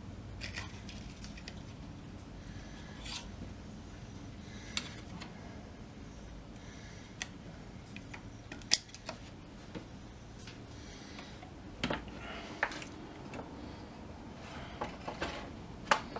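Scattered small metallic clicks and taps from a hand tool working rivets out of an old radio's dial plate, with a few sharper clicks in the second half.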